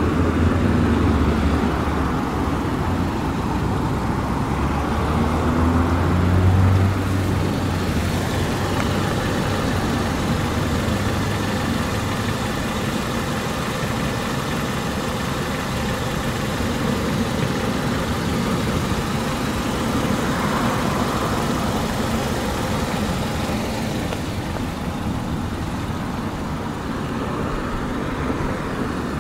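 A 2017 Kia Rio's 1.6-litre naturally aspirated inline-four idling steadily, with a low hum that eases back a little about seven seconds in.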